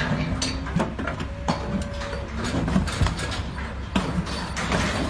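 Cattle stepping out of a livestock trailer and down its loading ramp: irregular hoof knocks and clatter on the trailer floor and ramp, with rattles from the trailer.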